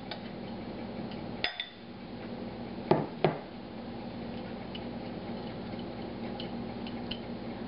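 Kitchenware handling: a metal serving spoon clinks once against glass or ceramic with a brief ring, then two knocks about a second and a half later as the emptied glass mixing bowl is set down on the counter. Faint soft taps follow as broccoli florets are shifted in the ceramic casserole dish, over a steady low hum.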